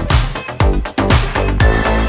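Background electronic dance music with a steady four-on-the-floor kick-drum beat.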